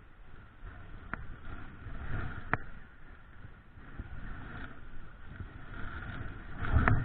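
Wind rumbling on the microphone over a running stream, with three sharp clicks from handling the fly rod, reel and line; the last click, near the end, comes with a louder gust.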